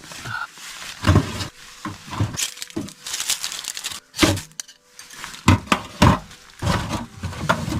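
Ice-covered, soaking-wet firewood being split by hand: a series of irregular knocks and splitting cracks.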